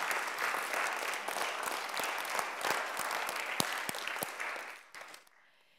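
Audience applauding, the clapping fading out about five seconds in.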